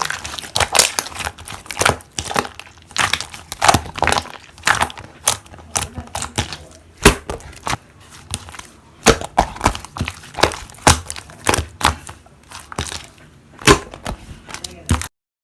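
Slime being squished and pressed by hand, giving a run of irregular crackling pops and clicks that stops suddenly near the end.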